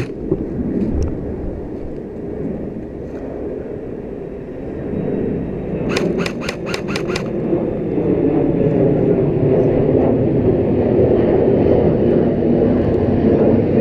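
A quick string of about six airsoft gun shots, about five a second, about six seconds in. Under it runs a steady low rumble that grows louder in the second half.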